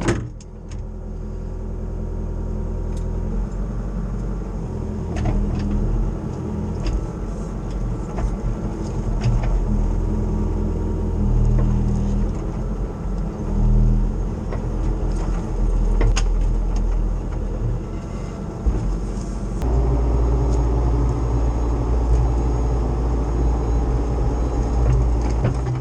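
Cat 304 CR mini excavator's diesel engine running under varying load, its note shifting several times and heaviest over the last few seconds, with scattered knocks.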